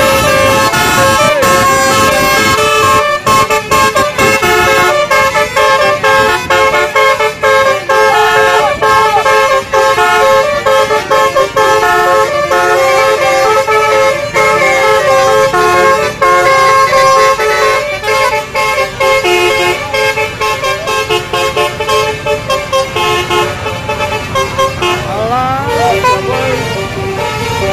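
Basuri multi-tone 'telolet' bus horn playing a tune: loud, steady horn notes stepping quickly from pitch to pitch, going on for the whole stretch.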